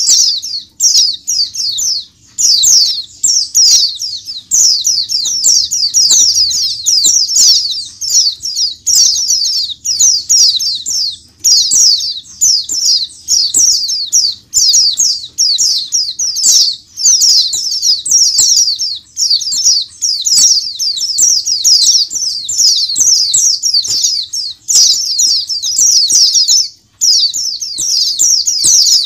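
A crowded cage of white-eyes (pleci) chirping together: many high, thin twittering calls overlap in a dense, continuous chorus, broken only by a brief pause near the end.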